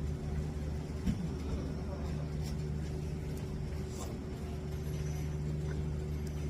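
A motor or engine running with a steady low hum, with a few faint knocks.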